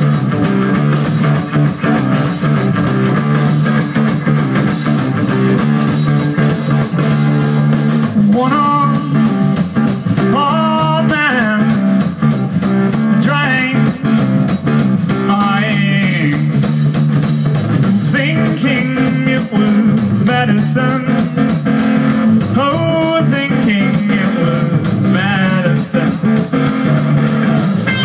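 A live rock band playing with electric guitars, bass and drums, and a voice singing over the band from about eight seconds in.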